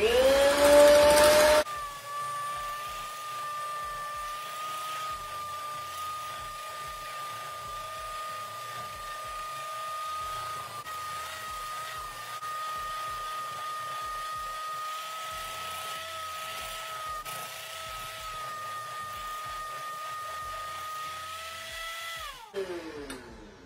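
Electric hand mixer spinning up, loud for the first second and a half, then running steadily with a high whine as its beaters whip cheesecake batter in a stainless steel bowl. Near the end the motor winds down, its pitch falling.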